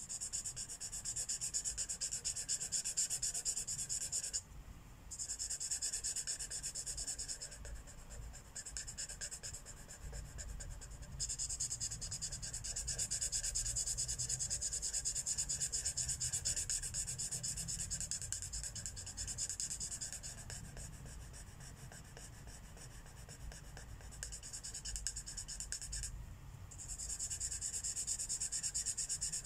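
Marker tip rubbing back and forth on paper in quick strokes while coloring, with short pauses as the pen lifts, about four seconds in and again near the end.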